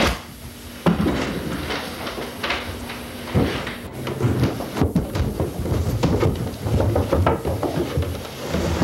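Irregular knocks and thumps of a person clambering up a flight of stairs, with a sharp knock about a second in.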